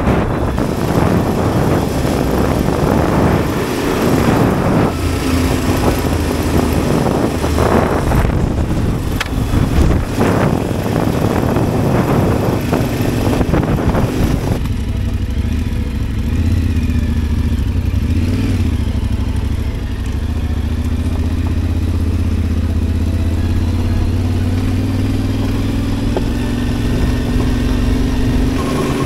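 Adventure motorcycle engine running under way, buried in heavy rushing noise for the first half. About halfway through the rushing drops away suddenly, leaving a steadier, lower engine drone.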